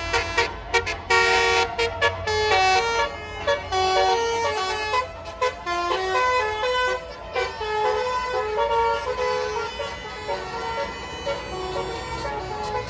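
Bus 'telolet' musical air horns (Basuri horn module) playing a fast melody of rapidly changing notes, over a low rumble underneath.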